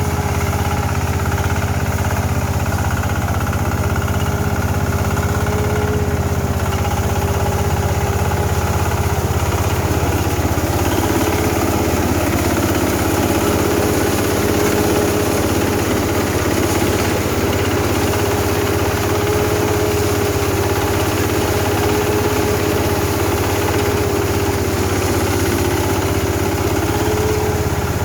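Rice harvester's engine running steadily, with a constant mechanical whine above the low engine note.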